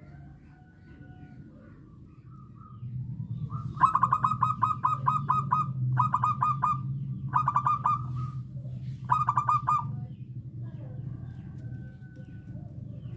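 Zebra dove cooing: four bursts of rapid staccato notes, the first the longest at nearly two seconds, the others under a second each. A steady low hum lies underneath.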